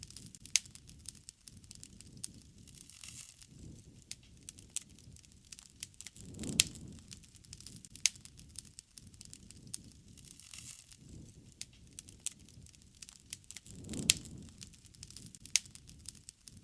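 Wood fire crackling, with frequent sharp pops over a low rumble of flame. Twice, a low swell rises and peaks in a louder pop.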